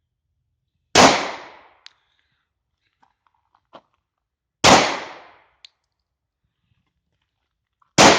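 Three single 9mm shots from a German P.08 Luger pistol, a few seconds apart, each followed by a brief echoing tail. A faint click comes under a second after the first two shots.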